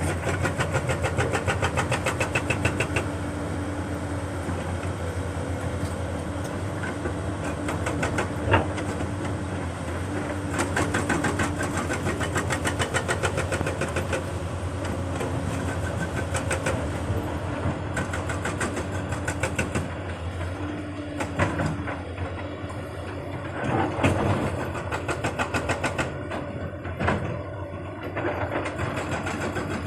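Heavy excavator diesel engine running steadily, with a few sharp knocks and clanks from the machine at work.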